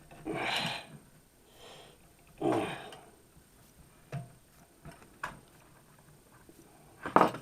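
Two short, breathy sniffs or exhales in the first three seconds, then a few light clicks and a sharper clatter near the end as the old fuel pump and its rubber boot are worked loose from the bracket.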